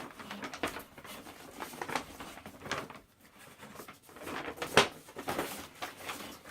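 A folded paper poster rustling and crinkling as it is handled and unfolded, in irregular bursts, with one sharper crackle about five seconds in.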